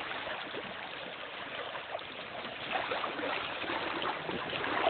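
River water flowing steadily over a shallow gravel riffle, a constant rushing with small splashy ripples.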